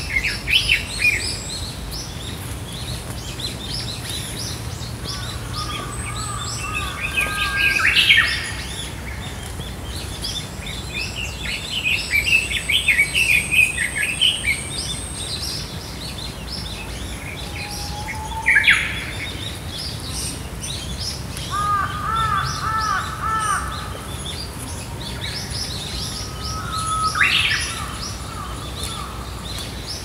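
Forest birdsong from several birds calling at once: chirps, trills and a long thin high whistle, with the song of a lesser cuckoo (hototogisu) among them. Louder short phrases stand out about every ten seconds.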